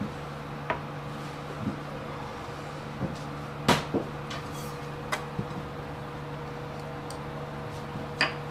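Clay donabe rice pot and its ceramic lid knocking and clinking against wood and tableware as the pot is set down and uncovered: a handful of short separate knocks, the loudest about three and a half seconds in.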